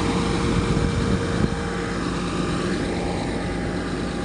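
A motor vehicle's engine running steadily, with a constant hum and no change in speed.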